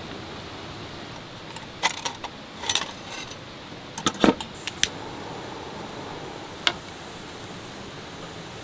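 Steady rain hiss, with a scattering of light clinks and taps from small objects being handled: a few around two seconds in, a quick run of them around the middle, and one more later.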